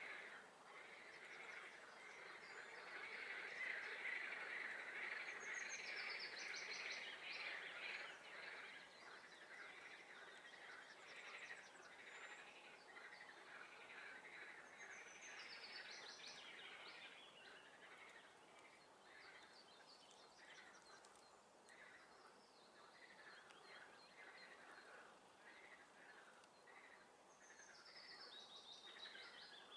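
Faint chorus of frogs calling, a dense pulsing din that is fullest in the first third and later thins into separate repeated calls. A songbird's descending trilled song rises over it three times: about six seconds in, midway, and near the end.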